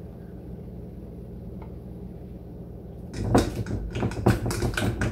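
A spatula handle stirring inside a glass carafe, knocking and clinking rapidly against the glass as sugar is stirred into the drink to dissolve. The knocking starts about three seconds in; before that there is only a low steady hum.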